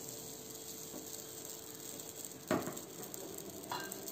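Pancake batter sizzling softly in a hot nonstick frying pan as a steady hiss, with one brief knock about two and a half seconds in.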